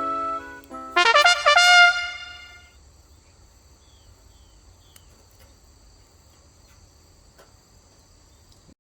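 Background music: held brass-like notes, then a quick run of bright notes about a second in that rings out and fades by about three seconds. Faint steady high-pitched tones follow, then the sound cuts off suddenly near the end.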